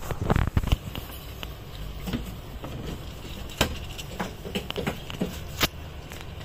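A hamster rummaging and eating in a plastic food bowl of dry pellets and seeds: scattered light clicks and rustles of food shifting against the plastic, with a couple of sharper clicks, over a steady low hum. There are a few louder knocks in the first second.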